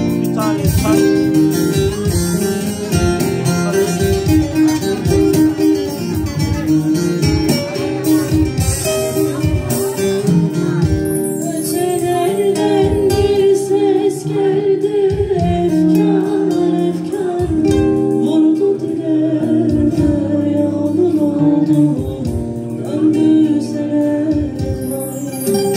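Live Turkish folk music: a bağlama (long-necked saz) plucked and strummed while a woman sings, both amplified through microphones and a PA speaker.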